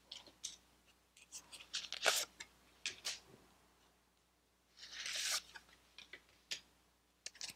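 Faint rustling and light clicks of Pokémon trading cards being slid and flipped over one another in the hands, with a longer rustle about five seconds in.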